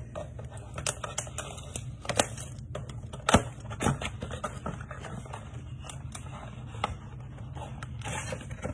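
Plastic shrink wrap crinkling and crackling as it is peeled off a cardboard trading-card box, with scattered clicks and a couple of sharper snaps a little over three seconds in. The cardboard box rustles as it is opened near the end.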